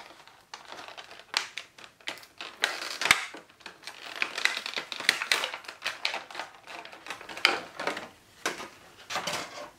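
Packaging rustling and crinkling, with many sharp clicks and taps, as a boxed figurine is pulled out by hand.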